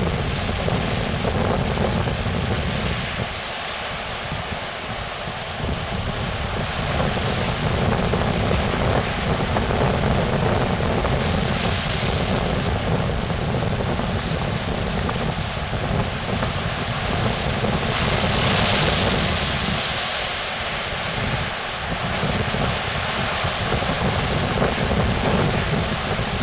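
Ocean surf breaking over rock ledges with a continuous hiss of white water, and wind buffeting the microphone with a low rumble. The rumble drops out briefly a few seconds in and again past the middle. The hiss of the surf swells about two-thirds of the way through.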